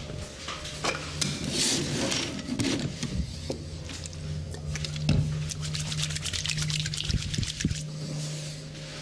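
Hands rubbing and scrubbing over a person's head and hair in a barber's massage, with a run of quick, closely spaced strokes in the second half, over a low steady hum.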